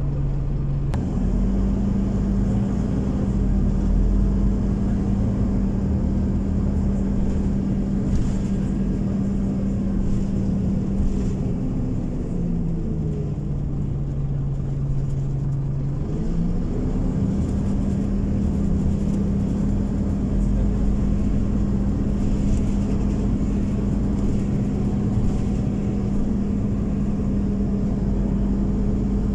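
Scania OmniCity city bus in motion, heard from inside the passenger cabin: a steady engine and drivetrain drone over a low rumble. Its pitch steps up about a second in, falls for a few seconds about midway, then climbs back up.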